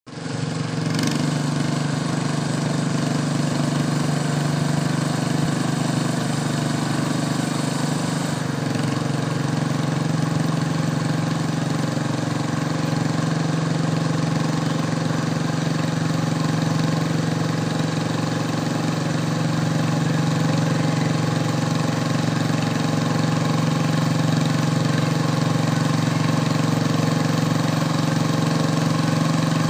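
Modified garden pulling tractor's engine idling steadily at one even pitch, with no revving.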